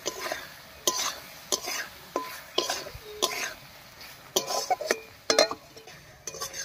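Spatula scraping and knocking against a metal kadai as thick masala paste is stirred and fried, about a dozen quick strokes, some with a short metallic ring.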